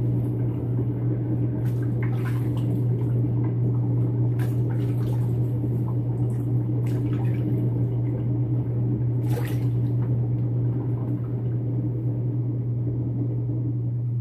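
Water running from a bathroom tap into the sink with a few short splashes, as lather is rinsed off the face after a shave, over a steady low hum.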